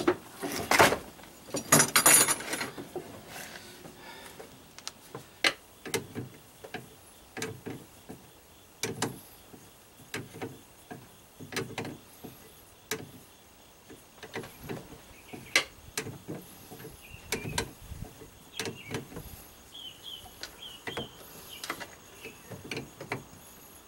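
Hand tools tightening nuts on an outboard motor's transom mounting: a socket ratchet and a wrench clicking and scraping in short, irregular strokes, with a louder rattle of handling at the start.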